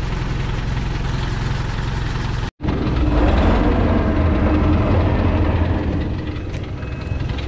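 Diesel engine of a Thaco Forland FC950 4WD truck running steadily. After a break about two and a half seconds in it is louder, with a steady whine over it, as the truck's front winch cable is drawn taut to pull it up a steep clay slope.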